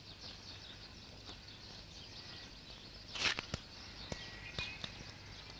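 Quiet outdoor ambience with faint bird chirps, a few light clicks and a brief rustle about three seconds in.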